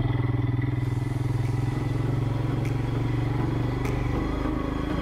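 Royal Enfield Himalayan's single-cylinder engine running steadily under load as the motorcycle climbs a steep, narrow road.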